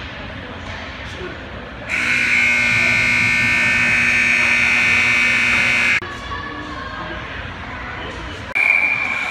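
Ice rink game buzzer sounding one steady, harsh tone for about four seconds, then cutting off abruptly. A shorter high tone sounds near the end.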